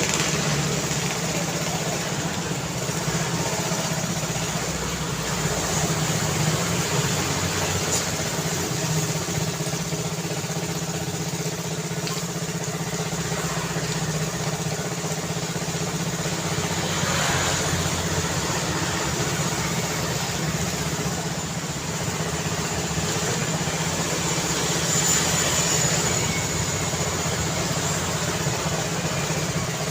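Road traffic: a steady mix of car and vehicle engines running and passing, with a continuous low engine hum underneath.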